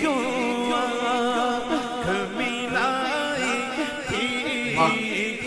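Man singing an Urdu naat (devotional song) into a microphone, holding long notes that waver and bend in pitch.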